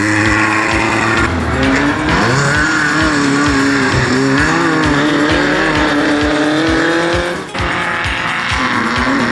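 Class 11 stock VW Beetle race car's air-cooled flat-four engine revving, its pitch rising and falling as the throttle works, with background music carrying a steady beat over it.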